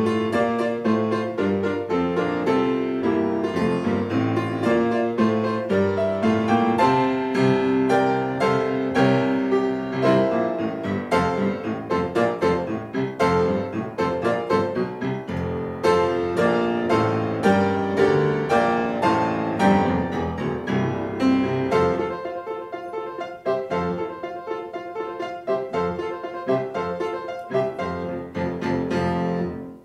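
Solo grand piano playing a piece with many notes in quick succession; it grows softer and sparser in the last eight seconds and ends near the close.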